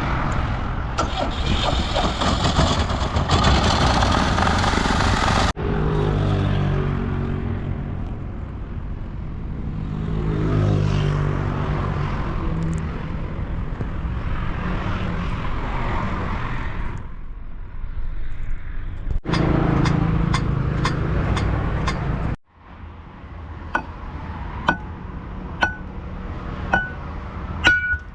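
Heavy machinery engine running, its pitch shifting, in several cut-together stretches. Near the end, five sharp metal strikes about a second apart, each ringing briefly, like a hammer on steel.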